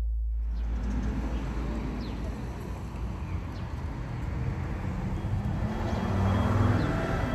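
Outdoor street ambience: a steady rumble of road traffic, with a few short, faint bird chirps.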